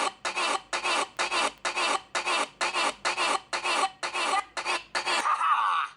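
High-pitched, sped-up cartoon voices chattering in quick clipped bursts, about three a second, ending about five seconds in with a short, steadier held sound.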